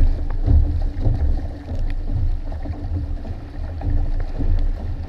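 Wind buffeting the boat-mounted camera's microphone in an uneven low rumble, over water rushing and splashing along the hulls of a Hobie Tandem Island sailing trimaran under way.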